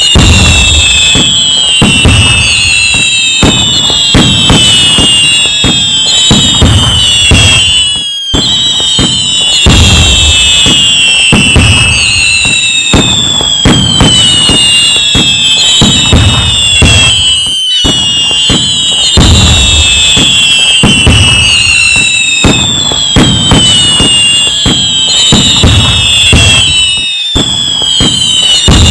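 Fireworks going off continuously: dense crackling and bangs with low booms, and many whistles falling in pitch. The same stretch of about nine and a half seconds repeats as a loop, with a brief dip each time it restarts.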